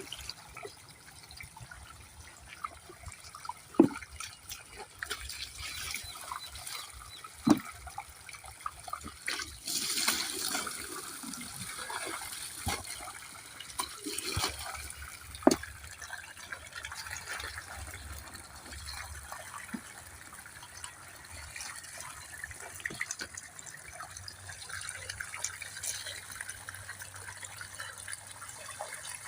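Running water, with a few sharp knocks: one about four seconds in, one at seven and a half, and one at fifteen and a half.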